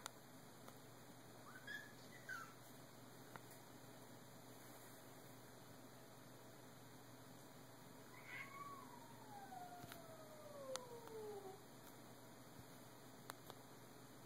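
Domestic cats squaring off with faint yowls: two short rising meows about two seconds in, then a long drawn-out yowl starting about eight seconds in that slides steadily down in pitch for some three seconds. This is the warning caterwaul of cats in a standoff.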